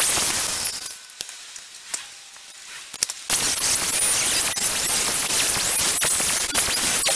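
Electric angle grinder grinding a steel bar held in a vise, a loud harsh grinding noise. It breaks off about a second in, leaving a quieter stretch with a few clicks, then grinds again steadily from just past three seconds.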